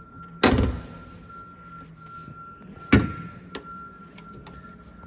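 A car hood being popped open: two loud clunks about two and a half seconds apart as the hood latch is released and the hood is raised. A faint steady high whine hums underneath.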